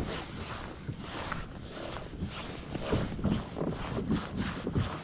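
Wind buffeting the microphone over water noise around a kayak, with small irregular knocks and rubs.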